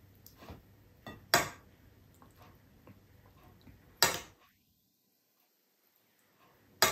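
Metal spoon clinking against ceramic plates as food and sauce are scooped from a serving plate onto a plate of rice: three sharp clinks, about a second and a half in, about four seconds in and at the very end, with fainter taps between.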